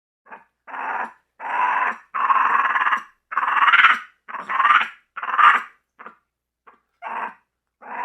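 Compsognathus dinosaur sound effect: a run of about ten short, raspy creature calls, each under a second, with brief gaps between them.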